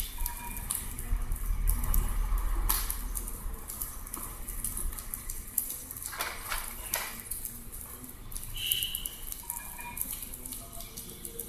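Homa fire crackling, with irregular clicks and pops and a thicker run of them about two-thirds of the way through, plus a few brief high-pitched chirps.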